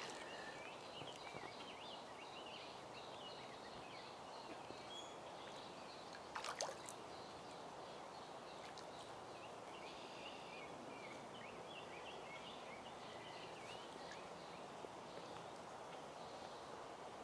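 Faint, steady running water of a small woodland brook, with small birds chirping throughout. About six and a half seconds in comes a brief knock or rustle.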